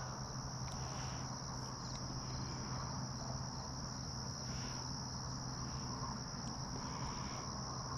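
Insects trilling steadily, a continuous high-pitched chorus like crickets at dusk.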